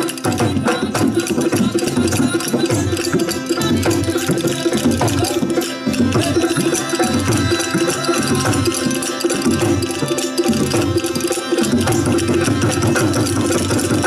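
Live Rajasthani folk music: a barrel hand drum (dholak) beating a fast, steady rhythm, with clicking percussion over sustained melodic notes.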